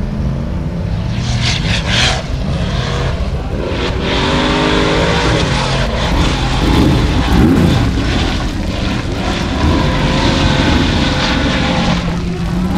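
Formula Offroad buggy's engine running at high revs, the revs rising and falling as it climbs a steep gravel hill, with gravel and stones spraying from its tyres.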